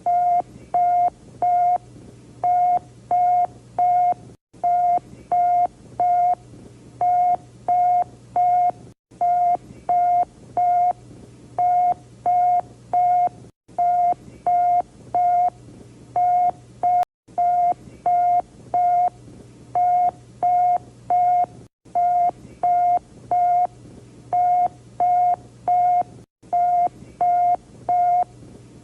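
Electronic alert beeps, a single pitched tone sounding in groups of three short beeps that repeat about every two seconds, over a faint low hum, with a brief dropout every few seconds.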